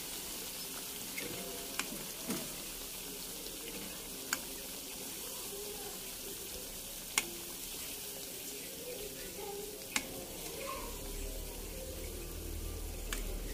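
Hot oil sizzling steadily in a frying pan around battered fermented-cassava fritters, with a few sharp clicks scattered through it.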